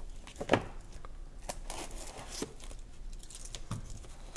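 Plastic shrink wrap on a cardboard game box crinkling and tearing as it is cut and pulled off by hand, with a few sharp clicks and knocks of the box being handled.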